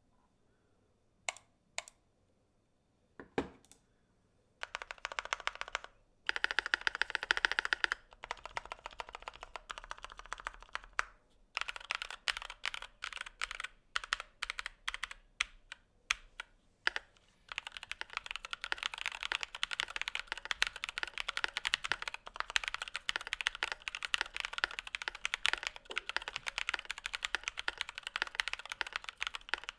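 Typing on a mechanical keyboard fitted with stock, unlubed Durock POM linear switches. A few single keystrokes come first, then bursts of typing, and from about halfway through, fast continuous typing.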